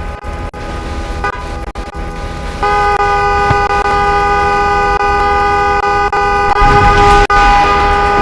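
School bell: several steady electronic tones sounding together like a held chord. It jumps louder about two and a half seconds in, and the notes change about six and a half seconds in.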